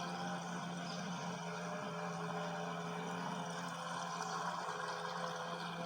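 Remote-control speedboat's electric motor running steadily on the water: an even low hum over a noisy hiss.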